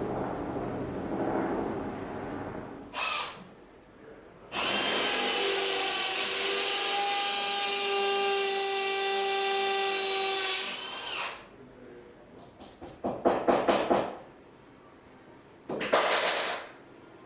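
Power drill running steadily with a whine for about six seconds, then a run of quick short bursts and one more brief burst near the end.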